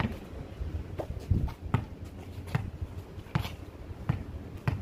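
Irregular thumps of a basketball bouncing on an asphalt court, mixed with players' footsteps, about nine short knocks in all.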